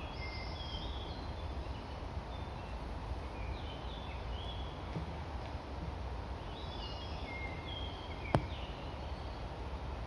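A songbird singing phrases of short, clear whistled notes at several pitches, repeated every few seconds, over a steady low rumble. A single sharp click a little past eight seconds in.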